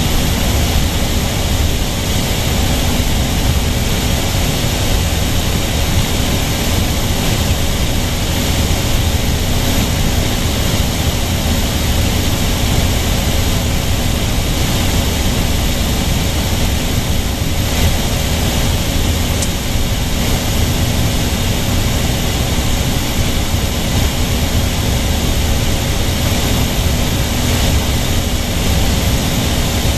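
Engine of a light airplane running steadily in flight, heard inside the cockpit as a constant loud drone mixed with airflow noise.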